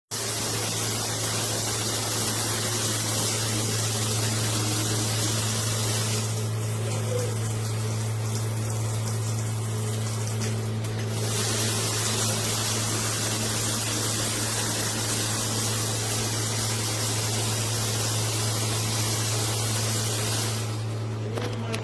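Steady rush of running water with a constant low hum under it. The hiss of the water thins out for about five seconds partway through, then returns.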